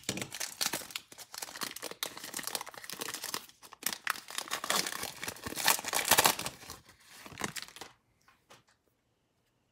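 Wrapper of a Panini Prizm football card pack crinkling and tearing as it is ripped open by hand. The rustle is loudest about six seconds in and stops near the end.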